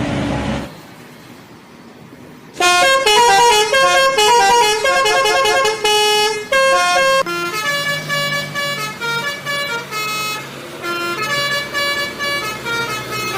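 Bus telolet horn, a multi-tone musical horn, playing a quick melody of short tooting notes that starts about two and a half seconds in after a brief lull.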